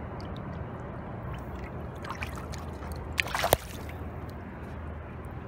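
River water sloshing and trickling in rocky shallows, with a short splash a little past three seconds in.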